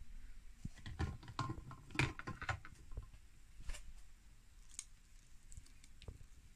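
Faint kitchen handling noise: scattered light clicks and knocks, most of them in the first three seconds.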